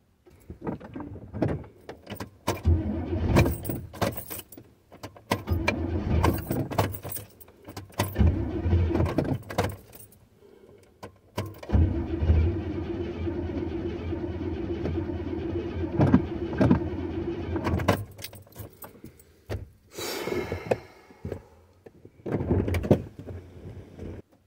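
1986 Chevrolet Caprice Classic's starter cranking the engine in repeated tries of a few seconds each, the longest about six seconds. The engine does not start after sitting unused for a year.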